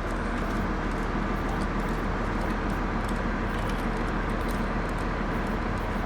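A truck engine sound effect running steadily at a constant level.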